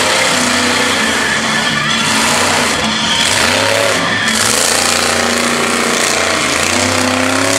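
Monster truck engine revving hard under full throttle, its pitch rising and falling several times as the truck accelerates through the jump.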